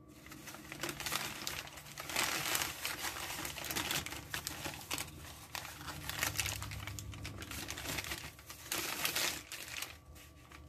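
Crumpled brown packing paper crinkling and rustling as it is pulled open by hand, with louder spells about two seconds in and again near nine seconds, dying down near the end.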